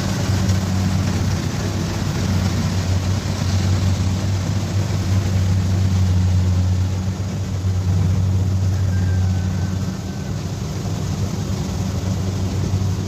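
Kubota DC-70 Plus combine harvester's diesel engine running steadily under working load, a loud low drone with machinery noise over it, easing a little near the end.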